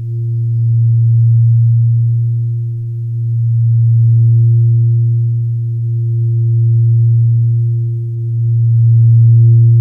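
A loud, steady low drone with a fainter higher tone above it, slowly swelling and fading about every three seconds, used as a background for silent relaxation.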